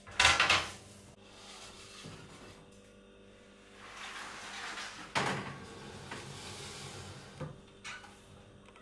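Pitsos oven door pulled open with a loud clunk just after the start. About five seconds in, a metal baking pan is set down on the wire oven rack and slid in with a scrape, followed by a few light knocks.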